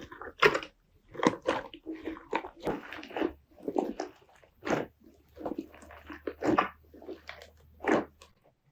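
Slime being squeezed and pressed by hand, making a string of short squishing and popping sounds at irregular intervals.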